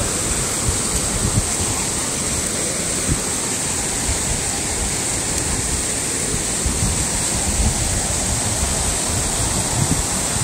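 Mountain stream rushing, a steady hiss of fast-moving water.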